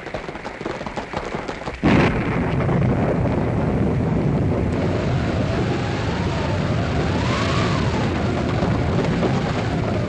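Radio sound effects for a gallop in a storm. Rapid hoofbeat-like patting made by men slapping their chests gives way, about two seconds in, to a sudden loud thunder crash that runs on as a steady rumble. A hand-cranked wind machine howls over it, rising and falling in pitch.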